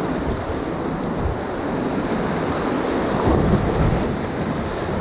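Rushing whitewater of a Class III rapid, heard from a kayak, with water and wind buffeting the microphone. It swells louder about three seconds in.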